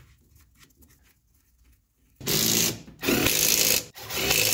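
Power driver running in short bursts, spinning on the half-inch nuts that hold a brake master cylinder to its booster. Faint clicks come first, then three bursts begin about two seconds in, with short pauses between them.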